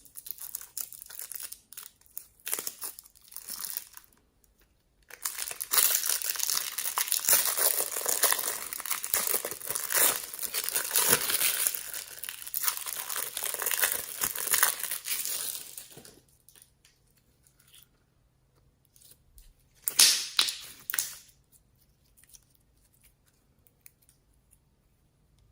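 Dry crinkling and tearing noise, with scattered crackles at first, then dense and continuous for about ten seconds from about five seconds in, and one shorter burst about twenty seconds in.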